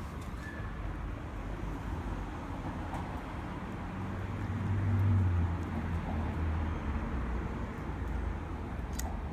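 Low vehicle engine rumble that swells about five seconds in and then eases off.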